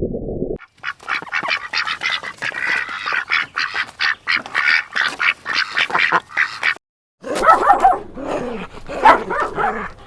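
Animal calls: a dense, rapid chatter of many overlapping calls for about six seconds, a brief break, then a different set of lower-pitched calls.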